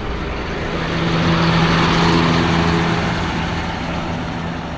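A large diesel coach pulls out and drives past close by. Its engine and tyre noise swells to a peak about two seconds in and then fades, with a steady low engine hum underneath.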